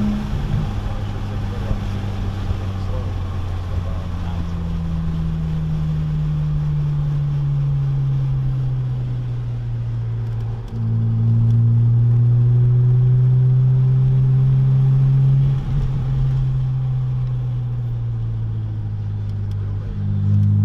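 Cabin sound of a muffler-deleted 2006 BMW Z4 M's S54 straight-six on track. The engine note drops as the driver lifts off from about 70 mph and falls slowly as the car slows. About eleven seconds in it gets louder under throttle, dips briefly near fifteen seconds, falls again, and picks up once more near the end.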